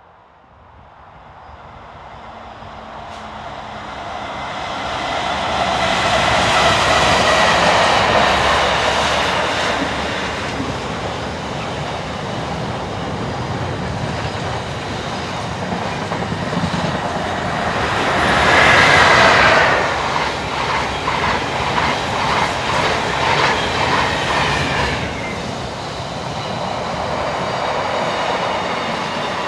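A Class 70 diesel locomotive hauling a container freight train approaches and passes, loudest about seven seconds in. After it come container wagons rolling steadily by, a brief wheel squeal about two-thirds of the way through, then a run of rhythmic wheel clicks.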